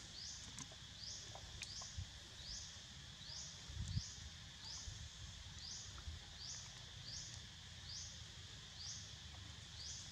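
Forest ambience: a steady high insect drone with a short, high, rising call repeating about every two-thirds of a second, over a low wind rumble with a brief bump about four seconds in.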